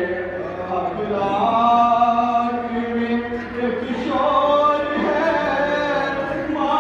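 Men's voices chanting a noha, an Urdu mourning lament, unaccompanied, in long held and gliding notes.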